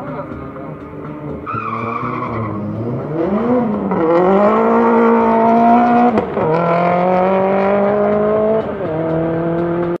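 Drag-racing cars launching off the start line about four seconds in, engines revving up at full throttle. The pitch climbs, drops at gear changes about six and nine seconds in, then climbs again.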